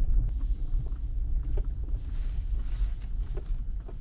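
Steady low rumble of a car's engine and tyres heard from inside the cabin while driving slowly, with a few faint clicks scattered through it.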